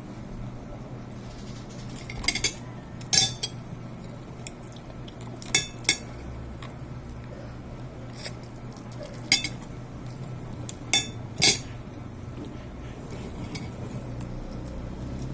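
Metal cutlery clinking against a plate while eating: about ten sharp, separate clinks at irregular moments, over a steady low hum.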